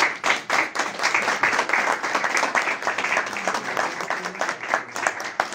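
Dense applause from many people clapping together, with the committee members clapping along.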